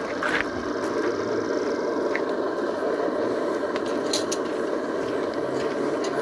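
Steady rushing noise with a few faint clicks and scrapes of a spoon in a pot of cooked quinoa as it is eaten.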